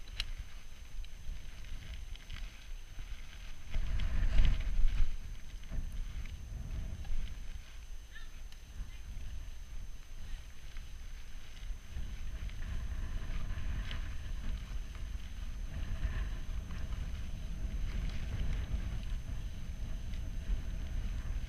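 Mountain bike riding over a dirt trail: a steady low rumble of tyres and wind on the microphone, louder and more jolting about four seconds in.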